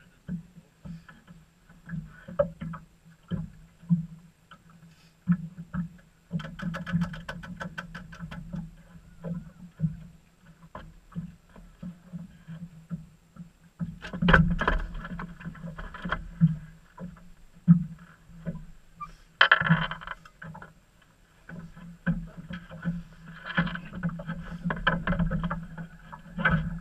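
Irregular knocks, thumps and rustles of fishing gear and bags being handled on the deck of a small fishing boat, with water lapping at the hull. The knocks are heaviest about halfway through and again near the end.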